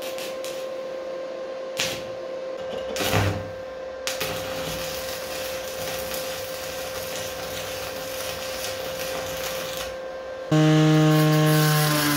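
Electric arc welding: a steady crackling hiss with a couple of sharp knocks in the first few seconds. About ten and a half seconds in, an angle grinder starts cutting metal, much louder, its pitch dropping as it bites.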